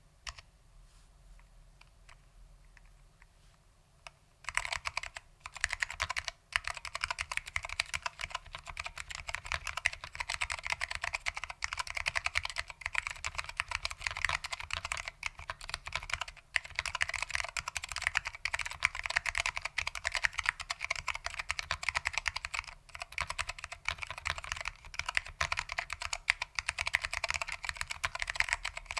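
Fast continuous typing on a keyboard with foam-damped SKCM Orange Alps switches, a dense run of key clicks and clacks. The first few seconds hold only a few faint clicks, and then steady typing begins.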